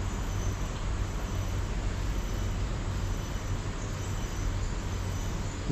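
Steady outdoor background noise: an even hiss with a low hum underneath, and no distinct event.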